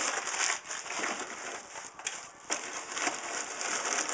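Packing paper and bubble wrap crinkling and rustling as parts are lifted out of a cardboard mailing box, with a couple of sharper crackles about two seconds in.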